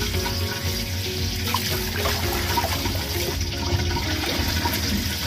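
Kitchen tap running into a stainless steel bowl in a steel sink, the water splashing as hands rub and rinse raw pork ribs in it.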